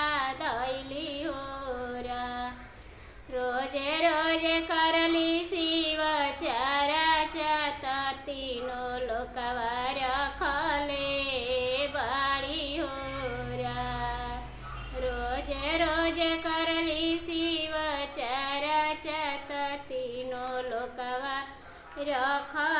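A woman singing a Shiva devotional bhajan in Bhojpuri, solo voice with long, wavering held notes. She breaks off briefly about three seconds in and again near the end.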